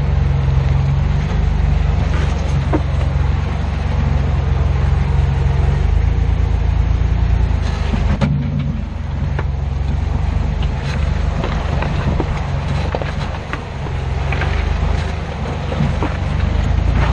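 A Jeep Wrangler JK's V6 engine runs low and steady under load as the Jeep crawls over creek-bed rocks, heard from beneath the chassis. Scattered knocks and scrapes come from the tyres and underbody on the stones, the sharpest about eight seconds in.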